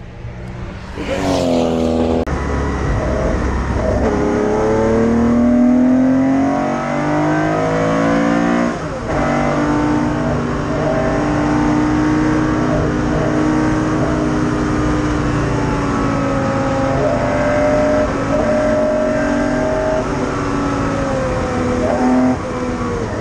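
A 1968 Porsche 911's air-cooled flat-six racing engine, heard from inside the cockpit at speed on track. The revs climb and fall through the gears, rising steeply in the first two seconds, with a short dip about nine seconds in.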